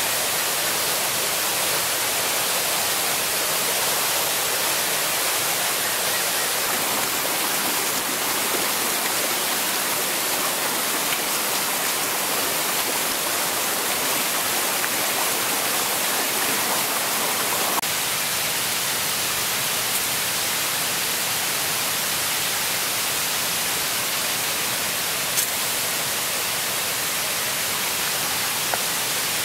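Steady rushing of a rocky forest stream, an even hiss with no breaks. Its tone shifts slightly about eighteen seconds in, and there is a single faint click near the end.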